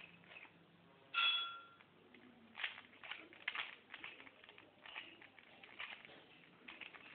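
A 3x3 Rubik's cube being twisted by hand: plastic layers clicking and rattling in quick, irregular turns. About a second in, a short high tone sounds for about half a second, louder than the clicking.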